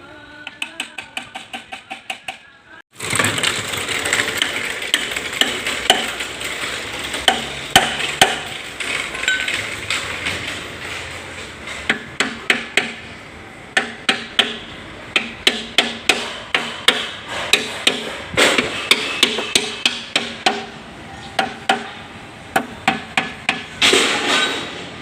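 Hammer striking metal in quick runs of blows, about four or five a second, over a noisy background, typical of driving a part home on a tiller rotor shaft with a pipe used as a drift.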